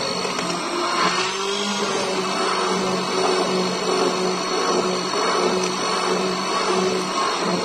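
Electric hand-held immersion blender running steadily in a tall glass, its blade crushing and churning milk with ice cubes. A continuous motor hum sits over a churning, splashing noise.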